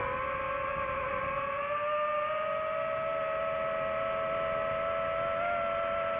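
DJI FPV drone's motors and propellers whining steadily. The pitch rises slightly about a second or two in as the throttle changes, then holds.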